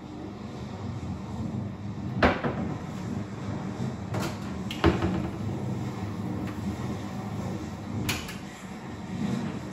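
Kitchen cabinet doors and drawers knocking shut and dishes clattering while a dishwasher is unloaded: a few sharp knocks, the loudest about two seconds in and another about five seconds in, over a steady low hum.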